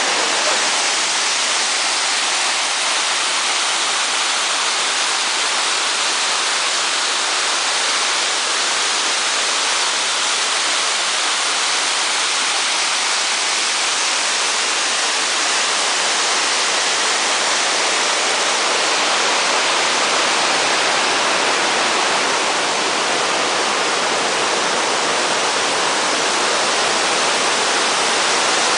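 Waterfall rushing steadily: a loud, even roar of falling water that does not change.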